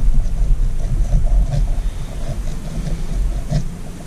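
Hand tool scraping and grinding at carbon in an outboard piston's ring groove, heard as a rough, uneven low rumble with scattered short scrapes and clicks. The rumble eases off near the end.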